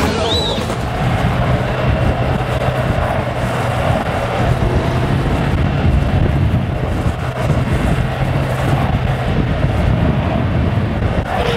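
Wind rushing over the microphone with a steady low road rumble, recorded at speed behind a downhill longboarder on asphalt.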